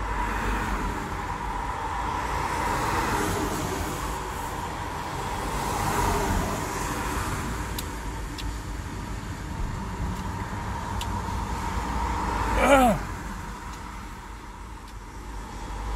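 Steady rumbling outdoor noise that swells and eases slowly. About three-quarters of the way through there is a brief hummed voice sound that rises and falls in pitch.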